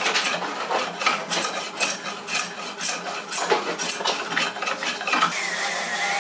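Handmade wooden hand plane shaving a board held in a vise: quick rasping strokes, two or three a second, as the blade cuts and shavings come off. Near the end the strokes stop and a steady hiss remains.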